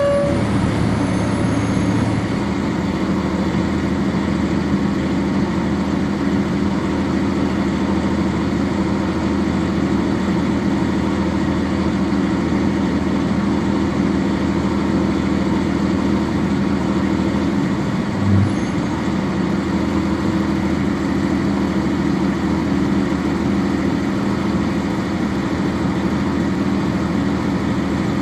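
NovaBus RTS transit bus heard from on board: its Cummins ISC diesel engine running at a steady pitch under a constant drone of cabin and road noise. There is a short beep right at the start and a brief low thump about 18 seconds in.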